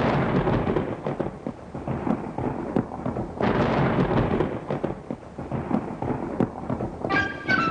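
Cartoon sound effect of heavy stone rumbling and crashing, with irregular thuds over a noisy rumble as the stone title letters shake into place. Near the end a bright, chime-like jingle begins.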